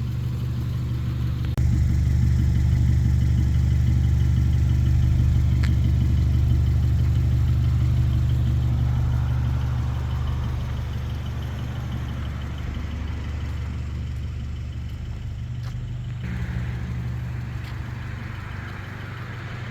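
Honda CR-V on the move, its engine and road noise heard inside the cabin as a steady low drone. It gets louder about a second and a half in and eases off after about ten seconds.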